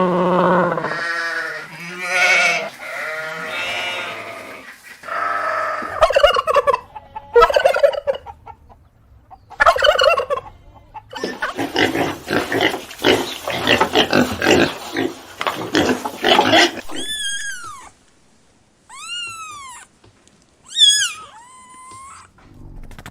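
A run of farm animal calls, mostly poultry: pitched calls at first, a fast pulsing run of calls in the middle, then several short high calls that rise and fall in pitch near the end.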